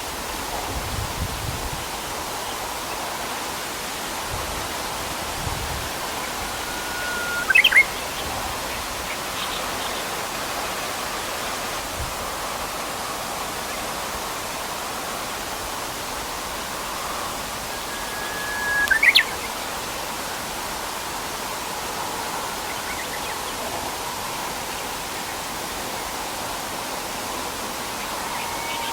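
Japanese bush warbler singing its hoo-hokekyo song twice, about eleven seconds apart; each phrase is a long held whistle ending in a quick rising flourish. A steady rushing of river water fills the background.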